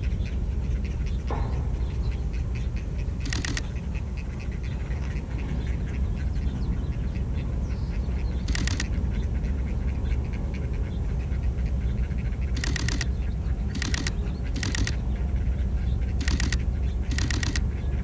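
Great blue herons at the nest clicking as the chicks are fed: short bursts of rapid, dull clicking, coming more often in the second half, over a steady low rumble.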